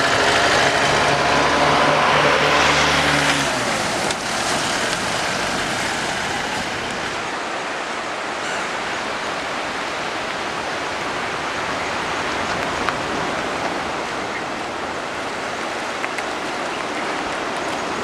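An auto-rickshaw engine passes close by and fades out about three to four seconds in. Under it, and alone after it, is the steady rush of a river in full flood.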